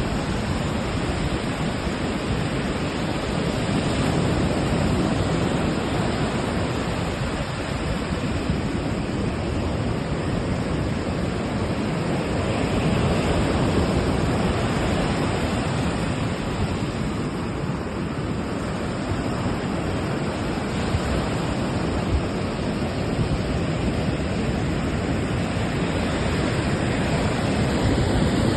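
Ocean surf: a continuous wash of waves, swelling and easing slowly every several seconds.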